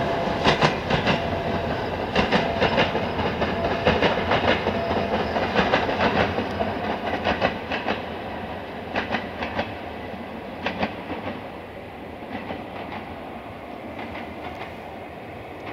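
A passing passenger train's wheels clicking over rail joints in quick groups of clacks over a steady rail rumble. The sound fades gradually as the train pulls away.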